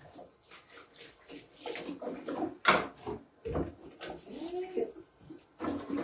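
Tap water running and splashing in a utility sink as glass jars are washed by hand, with irregular knocks and clinks of the glass and a brief squeak about four and a half seconds in.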